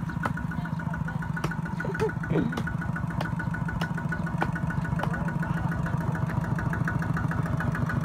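Kubota single-cylinder diesel engine of a walk-behind two-wheel tractor running steadily under load, in a fast, even beat of firing pulses, with a few sharp clacks scattered through it.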